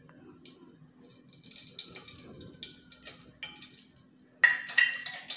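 Ghee melting in hot oil in an aluminium pressure cooker, with faint scattered crackles, then a ringing metal clank a little over four seconds in.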